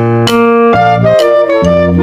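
Background music: keyboard chords over a bass line, the notes changing several times in the two seconds.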